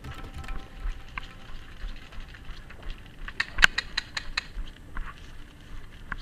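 Footsteps moving quickly over dry dirt and through brush, with irregular taps and rustles and a quick run of sharp clicks a little past halfway.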